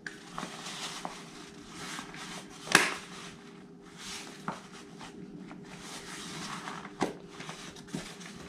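Handling noise from a stroller being assembled: fabric rustling, with scattered plastic clicks and knocks as the fabric seat is worked onto the metal frame. A sharp knock about three seconds in is the loudest.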